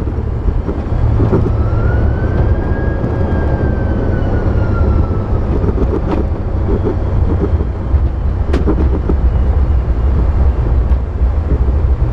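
Airbus A330 landing rollout: a steady low rumble of the engines and the wheels on the runway, with the thrust levers worked for reverse thrust. A whine starts about a second in, rises, then slowly falls and fades by about five seconds.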